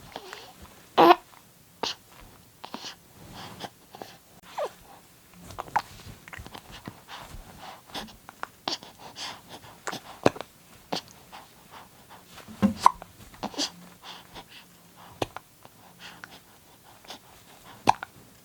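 A baby's short, sudden breathy sounds and small voiced squeaks at irregular intervals, about one a second, a few of them louder.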